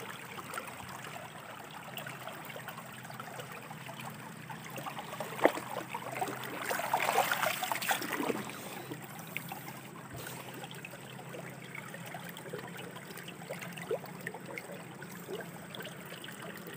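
Shallow stream water running and trickling steadily, growing louder for a second or two about halfway through, with a single sharp click shortly before.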